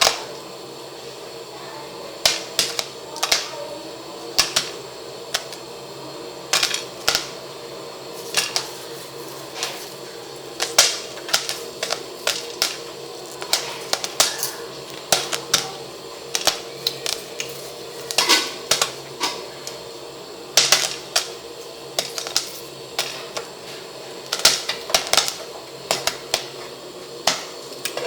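Sharp knocks and clicks from food preparation, coming in irregular quick runs of two to four, over a steady low hum.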